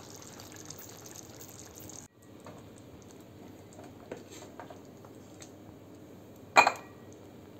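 Thick coconut-milk prawn curry bubbling and squelching in a frying pan as a wooden spatula stirs it, with a steady hiss that cuts off about two seconds in. Quieter scraping and small clicks follow, then one sharp knock with a short ring about six and a half seconds in as the spatula strikes hard crockery or the pan.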